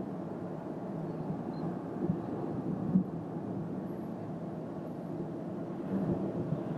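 Steady low road and drivetrain rumble heard inside the cabin of a Toyota Corolla 125h (1.8 hybrid) driving at road speed, with a single short thump about three seconds in.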